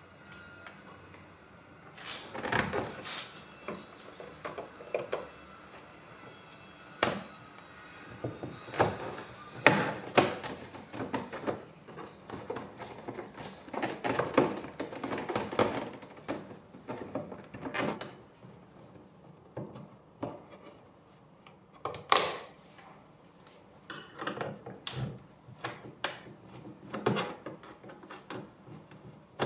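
Irregular plastic clicks, knocks and rattles of an Audi S3 8L interior door trim panel being handled and fitted onto the door.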